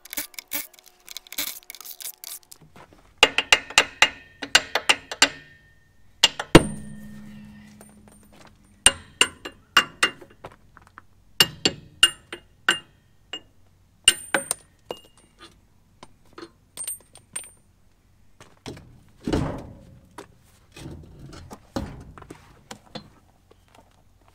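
Metal clinks and clanks of lug nuts and wedges coming off a truck's Dayton spoke wheel. There are rapid runs of rattling strikes in the first few seconds, then one loud clank that rings on for a moment about six and a half seconds in. Scattered light clinks follow, and a duller thud comes near the twenty-second mark.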